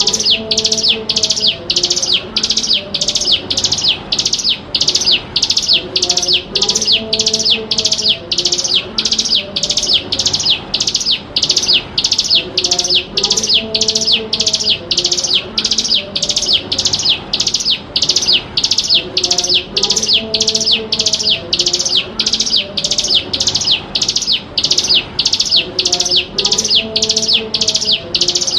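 Ciblek gunung, a prinia, calling without a pause: a high, sharp call repeated about twice a second in an even, unbroken series, as used in a lure recording.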